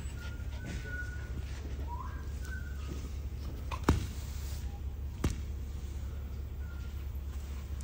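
Push broom knocking twice on a concrete floor, two sharp knocks about a second and a half apart, over a steady low hum. A few faint high whistle-like tones come in the first few seconds.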